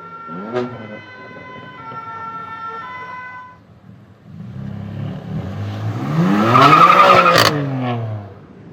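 BMW M4 (F82) with a Fi exhaust accelerating hard past. The exhaust note climbs then falls away, loudest about seven seconds in, with a sharp crack near its peak. Before it, for the first three and a half seconds, a siren-like tone changes pitch in steps.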